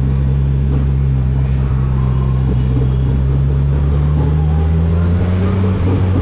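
Motorcycle engine running steadily at a low cruise, heard from on the bike, its note rising gently a few seconds in as it picks up a little speed, over road noise.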